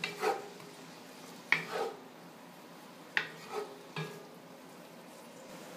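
Wooden spoon scraping and knocking against a 12-quart Lodge cast-iron Dutch oven while stirring small shrimp frying in olive oil, four sharp strokes about a second or so apart. A faint sizzle runs underneath.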